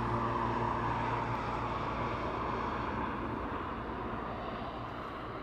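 Road traffic going past and fading away: an engine hum dies out about a second in, leaving tyre and road noise that slowly grows fainter.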